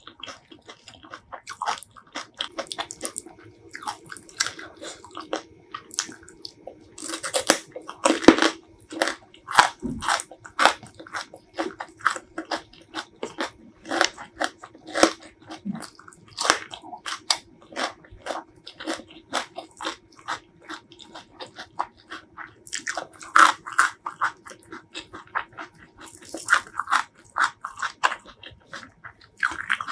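Close-miked chewing and biting of a spicy shrimp salad with raw greens: a dense run of wet mouth clicks and crackles, with louder crunching flurries about eight seconds in and again near three-quarters of the way through.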